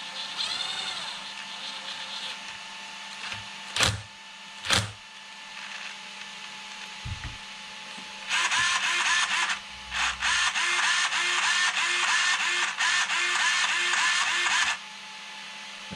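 A small electric motor whining in short bursts that bend in pitch, then two sharp clicks. After that comes about six seconds of loud, rattling mechanical whirring with a pulse about twice a second, which cuts off near the end.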